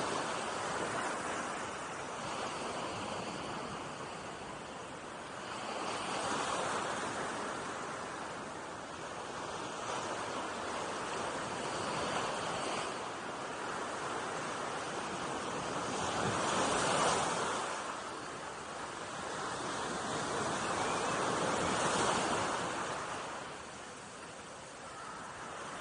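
Small ocean waves breaking and washing up a sandy beach, a steady rushing that swells every five seconds or so as each wave comes in.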